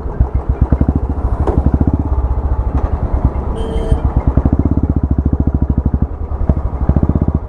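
Royal Enfield single-cylinder engine with an aftermarket silencer, running at low revs with a loud, uneven string of exhaust thumps as the bike pulls away slowly. Since the crash it keeps stalling and only runs normally above a certain rpm. A brief high tone sounds a little past halfway.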